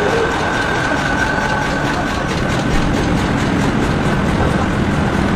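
Matchstick-making machinery handling wooden splints, running steadily with a continuous fast rattling clatter and a faint high whine.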